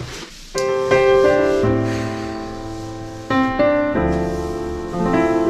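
Piano music added over the video: a slow run of held notes and chords that starts about half a second in.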